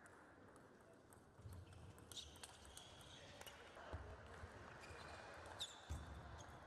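Faint table tennis rally: a celluloid-plastic ball clicking sharply off the bats and table a few times, with players' shoes thudding on the sports floor as they move.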